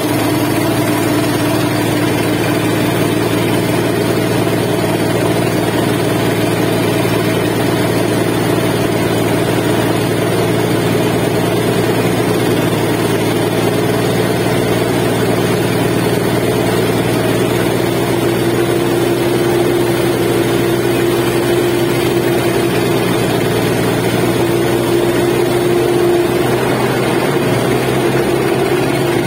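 Engine of a sand-pumping dredge boat running steadily at constant speed, a loud continuous hum. One tone in the hum grows stronger about two-thirds of the way through.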